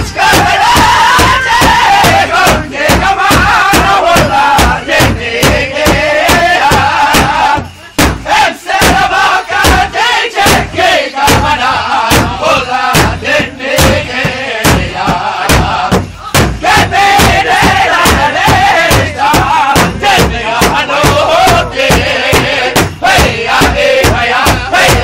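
Powwow drum group singing in high, wavering voices over a steady big-drum beat of about three strikes a second. The singing breaks off briefly about eight seconds in, then resumes.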